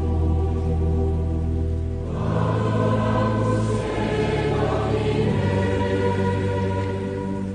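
Choral music: voices singing long held notes over a low sustained accompaniment, growing fuller about two seconds in.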